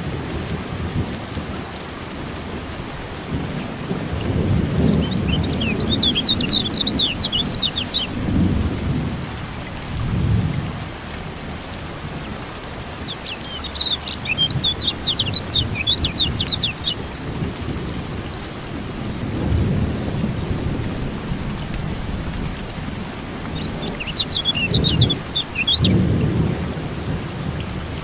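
Steady rain with rolling thunder rumbling and swelling. Over it come three bursts of rapid, high chirping from a kecial kuning white-eye, each lasting two to four seconds.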